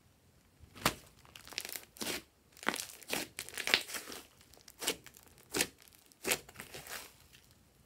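Thick glossy slime being pressed and stretched by hand, giving a run of sharp crackly squishes and pops at irregular spacing, about one every half-second to second.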